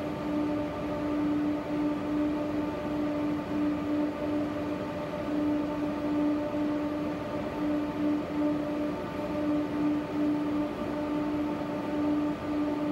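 Tram running between stops, heard from inside the car: an even rumble of running noise with a steady electric hum that flutters slightly.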